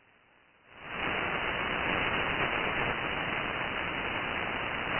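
40-metre SSB receiver audio: it cuts out for under a second as the NR-1 noise blanker is switched in, then fades back as a steady static hiss of band noise with no voice on frequency. The hiss sounds thin, clipped to the narrow SSB passband.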